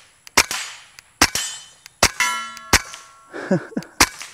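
Five shots from a suppressed KelTec P17 .22 LR pistol, roughly one every second, each a sharp crack with a short tail. About two seconds in, a hit sets a steel plate briefly ringing: the plate is struck but does not fall, because the .22 has too little energy to knock it over.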